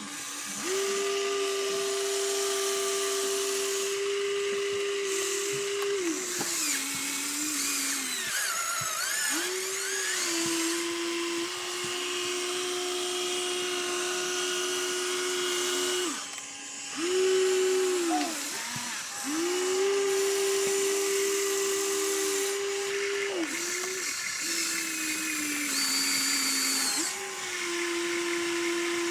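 Small electric motor of a radio-controlled construction model whining, held steady for several seconds at a time and dropping in pitch between stretches as it slows or takes load. The whine briefly fades out about sixteen seconds in, then picks up again.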